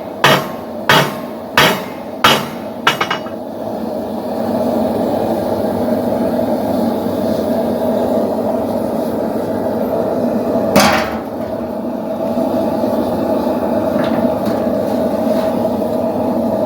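Blacksmith's hammer striking steel on an anvil while forging a poleaxe spike: about five blows, roughly two-thirds of a second apart, stopping about three seconds in. A steady rushing hum runs underneath, and one more sharp metallic strike comes near the end.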